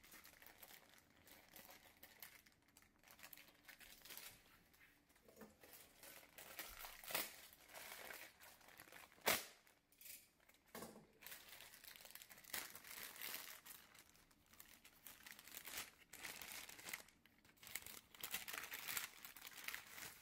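Thin plastic packaging bag crinkling and rustling as it is handled, in irregular spurts, with one sharp knock about halfway through.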